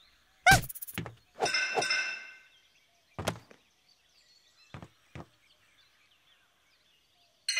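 Cartoon slapstick sound effects: a sharp thunk about half a second in and a second knock, then a short ringing pitched sound. Another thunk comes past three seconds, and two light knocks follow around five seconds.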